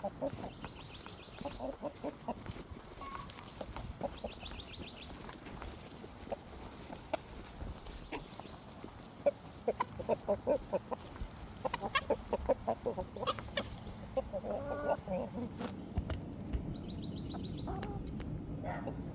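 Several chickens clucking in short repeated calls, busiest through the middle, with sharp clicks scattered between them.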